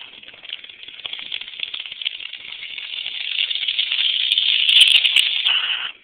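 Bong water bubbling rapidly as a long hit is drawn through it, growing louder from about a second in and cutting off suddenly near the end.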